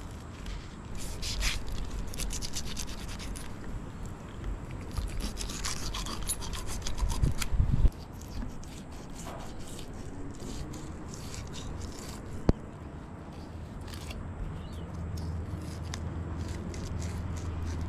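Filleting knife rasping and crackling through a mangrove jack's scales and flesh, in quick runs of fine clicks, with a heavy thump about halfway through and a single sharp click later.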